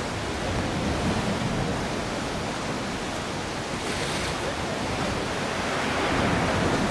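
Rough sea surging, a steady rush of waves with wind on the microphone, swelling louder near the end.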